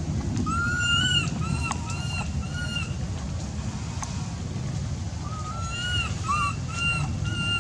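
An infant macaque gives high, whining coo calls in two bouts. Each bout is a longer call that rises and falls, then three or four short ones. A steady low background noise runs underneath.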